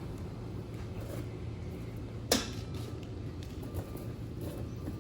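Pieces of stripped copper wire being handled and piled into an overfull melting crucible: one sharp metallic clink a little over two seconds in, over a steady low hum.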